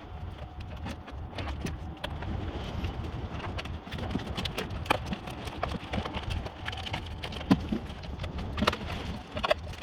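Plastic door membrane being cut with a knife and pulled back from its sticky sealant: irregular crackles and sharp clicks, the sharpest about seven and a half seconds in, over a low steady hum.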